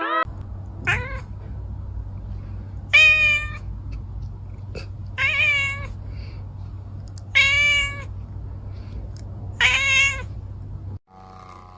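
A domestic cat meowing again and again: five drawn-out meows about two seconds apart, each rising then falling in pitch, the first one shorter and fainter. A steady low hum runs under them.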